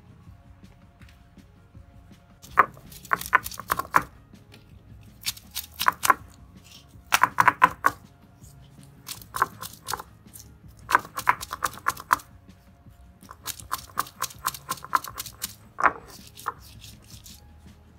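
Stone roller knocking and crushing onion, garlic and chilies on a flat grinding stone, in bursts of rapid stone-on-stone taps with short pauses between them.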